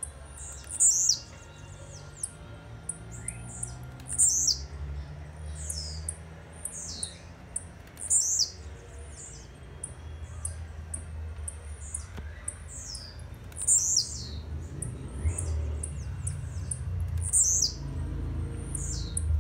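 Male blue-black grassquit (tiziu) singing its short, high 'tiziu' note over and over. Each note is a quick sweep falling in pitch, repeated every second or two, over a low background rumble.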